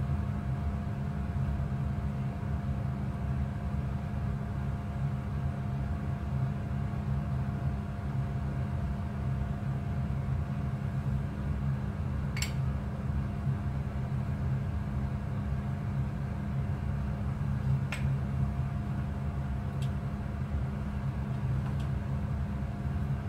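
Steady low mechanical hum from a running motor or appliance, with a faint higher tone over it. Two faint ticks come about halfway through and again about three-quarters through.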